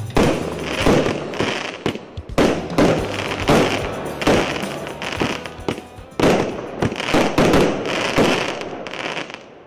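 Multi-shot firework cake, a 99-shot battery, firing a rapid series of shots, about one to two a second, each a sharp bang followed by crackling stars. The shots stop and the sound dies away near the end.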